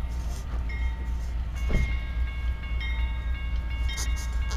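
Two GE C44-9W diesel locomotives approaching at the head of a freight train: a steady low rumble, with several thin high ringing tones starting and stopping over it.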